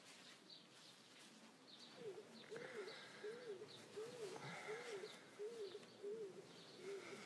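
Birdsong: a low cooing note, rising and falling, repeated about seven times at an even pace, with small birds chirping high and quick throughout.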